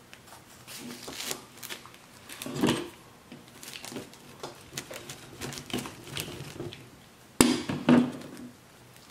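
A pizza cutter wheel crunching through baked pizza crust in a run of irregular crackling cuts. A sharp knock about seven and a half seconds in is the loudest sound, followed by a short crunchy burst.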